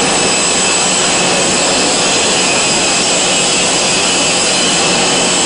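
Automatic cartoning machine running: a loud, steady mechanical noise with a few faint steady tones and no clear beat.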